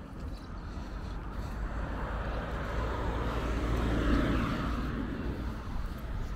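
A vehicle passing by, its sound rising to a peak about four seconds in and then fading away, over a steady low rumble.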